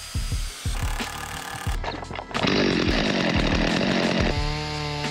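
A Stihl chainsaw cuts through a hardwood plank for about two seconds, starting about halfway in. Background music with a steady beat plays throughout.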